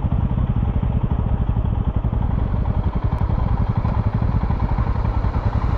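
Royal Enfield Himalayan's 411 cc air-cooled single-cylinder engine running steadily while the motorcycle is ridden, its firing pulses coming as a fast, even low thud.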